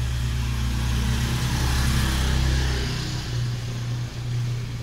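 A motor vehicle's engine running, swelling louder over the first two and a half seconds and then easing off, over a steady low hum.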